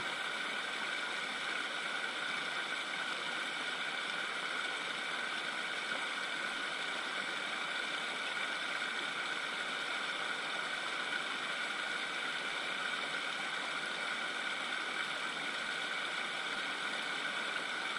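Fast-flowing river riffle: an even, steady rush of water.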